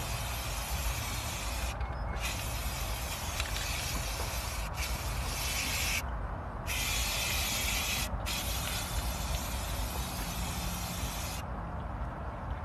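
Aerosol spray paint can spraying in several long hissing bursts with brief pauses between them, stopping about a second before the end.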